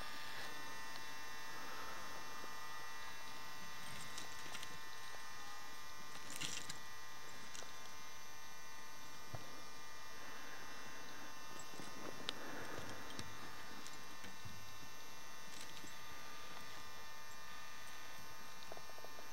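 Steady electrical hum with several fixed high whining tones, and a few faint rustles and a soft click over it.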